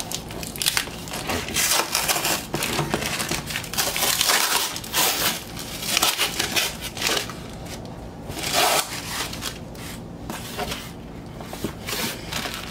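A cardboard record mailer box being wrestled and pulled open by hand: a run of loud, rough scraping and ripping noises that eases off after about nine seconds.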